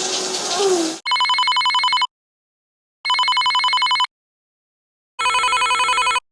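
Electronic telephone ringing: three one-second warbling trills, each a second apart. Before the first ring, a steady rushing hiss like running water cuts off about a second in.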